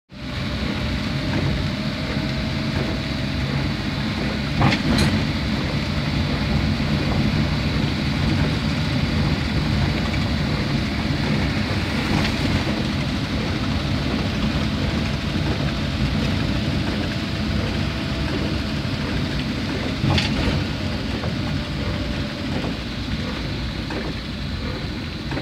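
A vehicle driving on a wet road: steady engine hum and tyre noise, with two short knocks, one about five seconds in and one about twenty seconds in.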